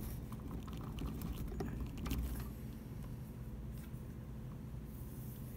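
A few faint clicks and rustles of a power cord's plug being pushed into the inlet of a Bitmain power supply and the cord being handled, over a low steady rumble.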